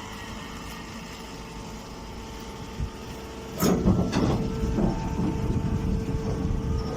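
Chopped straw press baler machine running with a steady hum; about halfway through, a sharp knock starts a louder stretch of irregular knocking and rumble as the machine works.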